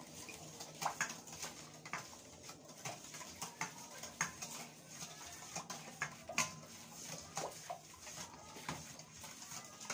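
Spatula stirring a liquid yeast and egg mixture in a stainless steel mixing bowl, knocking and scraping against the metal in irregular clicks, a couple a second.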